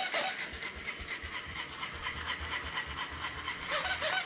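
A battery-powered toy bunny's hopping mechanism running, a soft rhythmic rasping about four times a second. Near the end a louder rhythmic pulsing with a pitched tone comes in.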